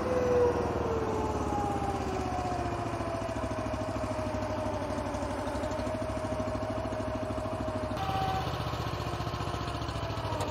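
Tracked spider aerial lift's power unit and hydraulics running as the upper carriage slews round on the undercarriage to line up its alignment arrows. A steady running sound carries a whine that falls slightly in pitch and then holds steady, with a small change about eight seconds in.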